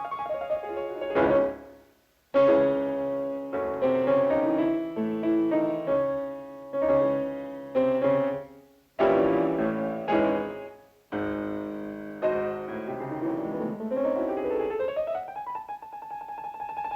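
Piano playing a string of loud, sharply struck chords, each left to ring and die away, with brief pauses between some of them. Near the end a rising run climbs into a steady high held note.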